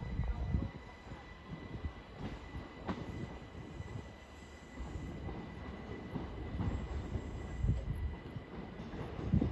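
A pair of Class 375 electric multiple units pulling out of the station, wheels rumbling and clattering over the track, with a thin steady whine above.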